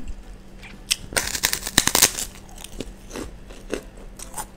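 A large white kerupuk cracker crunching as it is broken or bitten: a dense run of sharp crackles starting about a second in and lasting about a second, then a few softer crackles.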